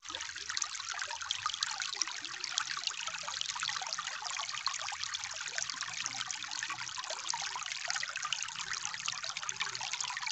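Shallow stream trickling and babbling over small rocks: a steady, dense patter of many tiny splashes.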